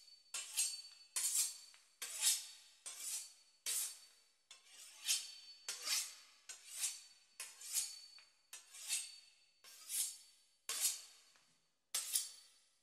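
Metal knife blade scraping in short, evenly spaced strokes, a little more than one a second, each with a faint metallic ring.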